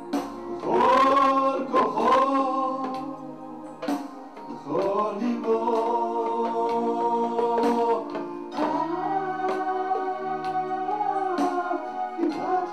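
A man singing slow, drawn-out phrases into a microphone, holding long notes, over a steady accompaniment.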